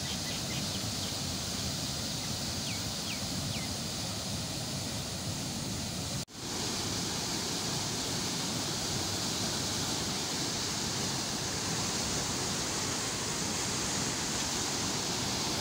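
Canal water pouring through a head regulator's gates and churning into white water below, a steady rushing noise that drops out for an instant about six seconds in.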